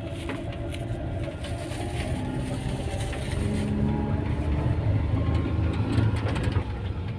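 Car engine running steadily with a low rumble as the car is driven slowly.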